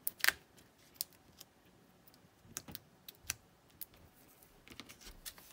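Scattered light clicks and taps of cardstock pieces being handled and pressed down onto a card on a work surface, with the loudest cluster just after the start.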